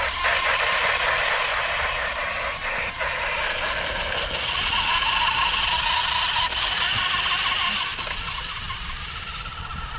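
A Ducati RC toy motorcycle's small electric motor whining, its tyres rolling on concrete, the pitch wandering up and down as it speeds up and slows. It drops off and gets quieter about eight seconds in, as the bike slows.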